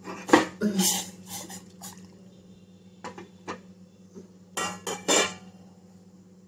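Stainless steel kitchenware clinking: a steel plate lid and saucepan handled on a gas stove. A sharp clink comes just after the start, then a few lighter ones, and another cluster of clinks about five seconds in.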